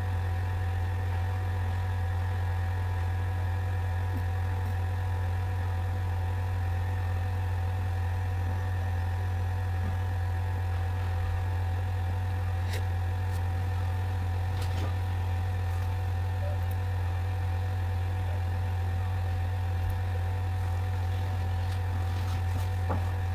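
Steady low electrical hum with a few faint, higher whining tones held above it, and a couple of faint clicks partway through.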